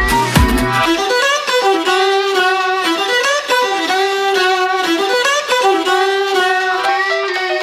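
Background music: a beat with low drums drops out about a second in, leaving a melody of sliding, held notes.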